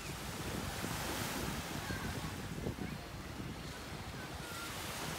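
Small waves washing onto a pebble beach, the hiss of the wash swelling about a second in and again near the end, with wind buffeting the microphone.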